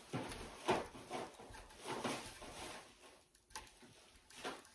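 A cleaning rod being run through the barrel of a Henry Classic lever-action .22 rimfire rifle: several short, irregular scraping strokes.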